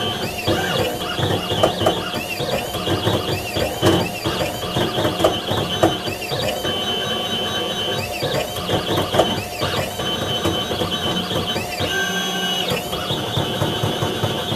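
Computerized diamond-tip engraving machine cutting into a metal plate. Its drive motors whine in quick rising and falling glides as the head moves from stroke to stroke, over a steady scratching and ticking from the tip on the plate.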